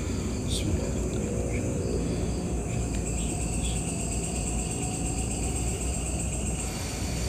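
Crickets chirping in steady high trills over a low, steady background rumble. A higher trill joins about three seconds in and stops near the end.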